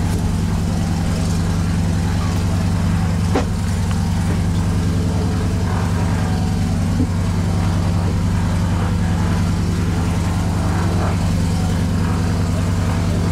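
A steady low engine hum, a machine idling at an even pitch, with an occasional faint click.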